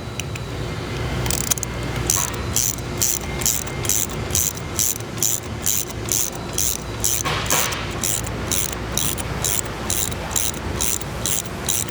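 OPW compact torsion swivel being rotated by hand to wind its torsion spring, giving a regular run of sharp metallic clicks about two to three a second over a low steady hum.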